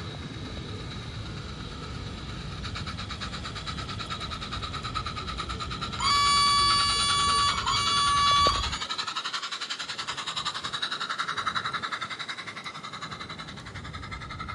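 Garden-scale model train running along the track with a steady, fast rhythmic clatter of wheels on the rails. About six seconds in come two loud toots, a long one and then a short one, the loudest sounds here.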